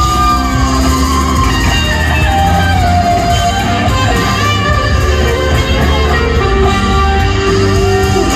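Live rock band playing an instrumental passage: an electric guitar lead with bent notes over strummed guitars, bass and drums, heard through a large PA.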